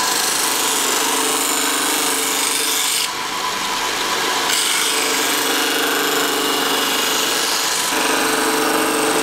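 Planer-knife sharpening machine running: a long planer knife clamped in the carriage is pushed back and forth along the spinning grinding wheel, a steady grinding hiss over the hum of the belt-driven wheel. The grinding changes character a few times as the carriage changes direction.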